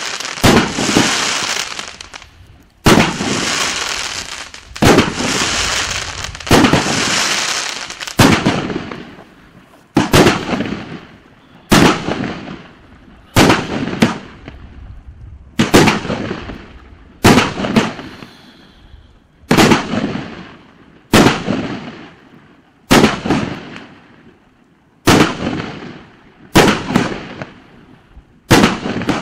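A 2-inch, 36-shot fireworks cake firing shell after shell, with a sharp report about every one and a half to two seconds. In the first several seconds each break is followed by a long sizzling crackle. Later breaks die away more quickly.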